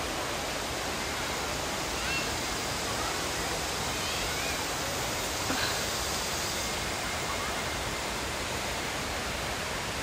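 Steady rush of water flowing and cascading over the rocks of a forest stream at a waterfall.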